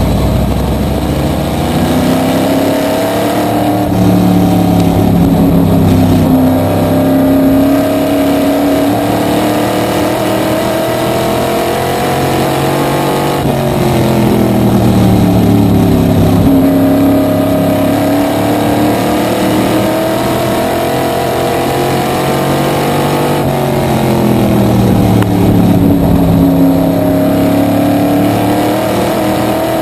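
Small-block supermodified race car's V8 engine heard from the cockpit while lapping, its pitch dropping and climbing back three times, about ten seconds apart.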